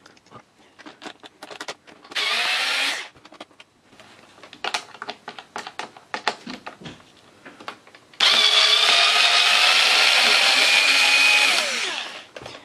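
Cordless drill-driver whining as it backs screws out of a stereo's hardboard back panel. There is a short run of about a second, then clicks and taps, then a longer run of nearly four seconds that winds down in pitch near the end.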